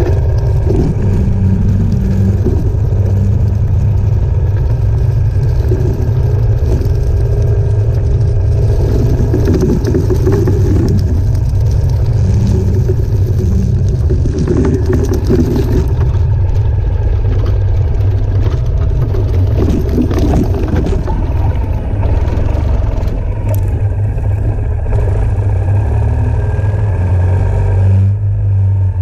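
Ural sidecar motorcycle's air-cooled boxer-twin engine running steadily under way, with no break in the sound.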